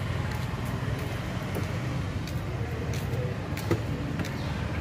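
Road traffic din: vehicle engines running steadily, with a sharp click a little before the end.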